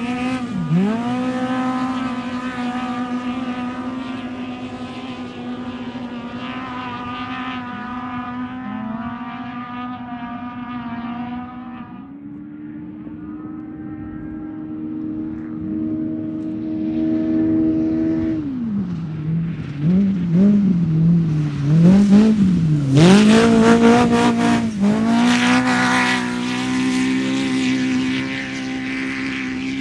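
Off-road race vehicle's engine running at steady high revs, with a brief dip about a second in. Past the middle it lifts off and blips the throttle several times, then comes back on hard, loudest just after, and settles to a steady high drone again.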